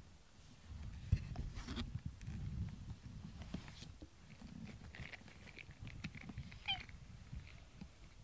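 A pet cat rubbing its fur against the microphone, giving a dull low rumbling with a few faint clicks, and one short meow a little before the end.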